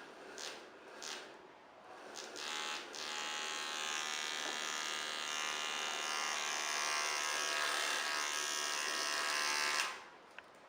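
Small battery-powered DC motor and rubber fan of a homemade bottle vacuum cleaner, whirring with a buzzing whine. It comes in a few short bursts at first, then runs steadily for about seven seconds and cuts off suddenly near the end when switched off.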